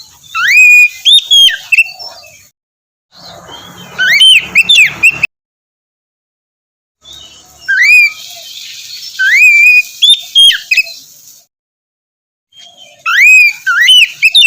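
Oriental magpie-robin (kacer) singing: loud whistled phrases that sweep up and down in pitch, in four bursts broken by short gaps of dead silence.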